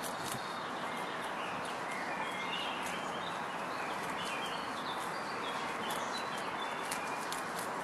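Two lop rabbits chewing and tearing fresh dandelion leaves: irregular crisp crunching clicks over a steady hiss, with short bird chirps in the background through the middle.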